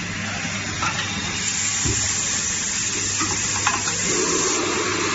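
Automated assembly machine for coffee-machine heating cores running: a steady hiss with a low hum under it and a few light clicks.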